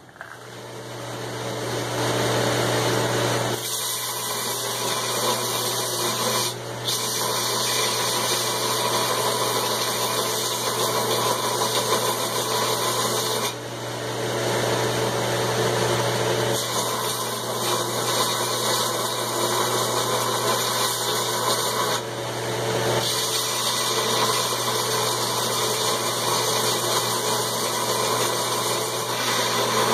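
Belt grinder coming up to speed and then running steadily with a low motor hum, as the steel head of an old ball peen hammer is rough-ground against the belt. The grinding noise shifts in loudness several times as the work is pressed to the belt and eased off.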